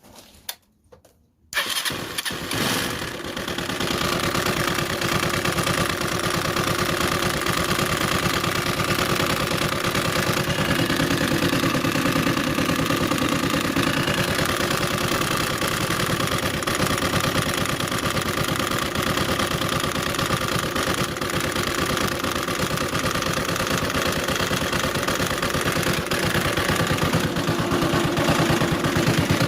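CG 150 single-cylinder four-stroke motorcycle engine, with its top cover off, starting about a second and a half in and then running at a steady idle. It carries the deep knock that the owner likens to a stone inside and rules out as valve noise, the sign of a broken pushrod.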